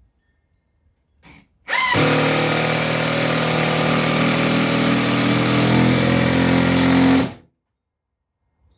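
Power drill spinning up and running steadily for about five and a half seconds, driving a long screw into subfloor, then stopping. A brief blip of the trigger comes just before.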